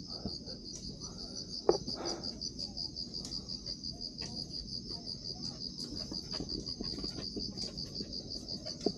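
Night insects chirping in a steady, fast, even pulse. There is one sharp knock about 1.7 s in.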